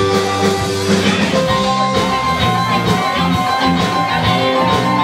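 Live blues-rock band playing loud, with guitar, bass and a drum kit keeping a steady beat and long held notes over it.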